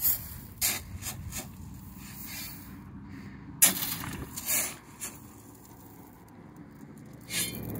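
A shovel scraping into a pile of gravel and flinging it across the ground, stroke after stroke, each a short scrape followed by scattering gravel; the loudest stroke comes about three and a half seconds in.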